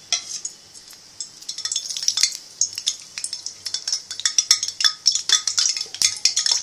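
Hot oil crackling and popping in gram-flour batter just after it is poured in. A dense run of sharp crackles starts about a second in and grows busier.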